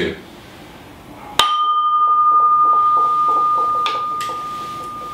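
Large sculptural bowl vessel struck once about a second and a half in, then ringing with a single clear high tone that wavers slightly and slowly fades; a brighter overtone dies away within the first second.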